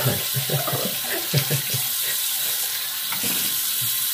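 Bathroom sink tap running with a steady hiss of water. A few louder, lower sounds come over it in the first couple of seconds.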